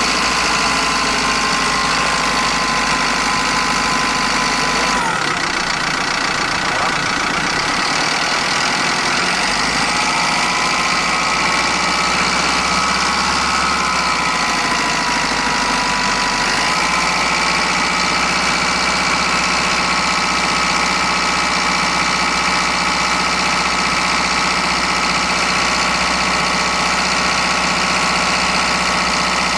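A 2010 Toyota Coaster minibus's engine running steadily at idle, with a high whine over it whose pitch drops about five seconds in and wavers a little between about ten and seventeen seconds.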